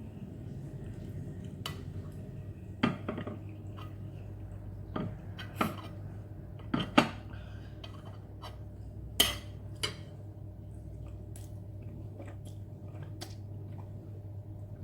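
Eating utensils clinking and knocking against a bowl or plate in about nine irregular sharp strikes, the loudest a little past the middle, over a steady low hum.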